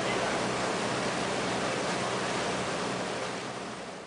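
Steady rush of water churning in a fast boat's wake, with wind and a low, even engine drone beneath it. The sound fades out near the end.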